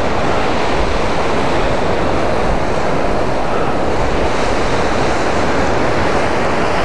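Steady rush of wind on the microphone mixed with surf breaking on a rocky shore, with a low, buffeting rumble underneath.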